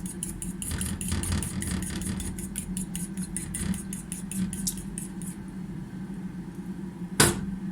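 Eggs and cooking oil being whisked by hand in a bowl: quick, regular clicks of the utensil against the bowl, about five or six a second, stopping about five seconds in. Near the end comes one sharp knock, the loudest sound.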